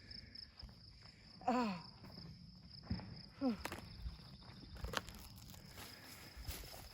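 Footsteps crunching on the ground under a heavy load, with a woman's strained exclamation and a short grunt, over steady cricket chirping.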